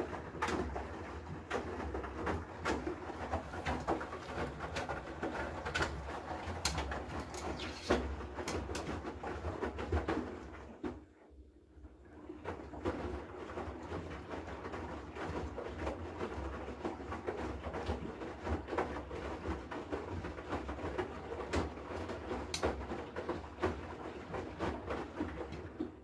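Haier HW80-B14979-S front-loading washing machine in its wash cycle: the drum tumbles wet laundry, with water sloshing and small knocks. About eleven seconds in the drum stops for a moment, then starts turning again.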